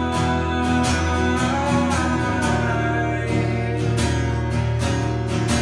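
Live acoustic folk-pop music: acoustic guitar strummed in a steady rhythm.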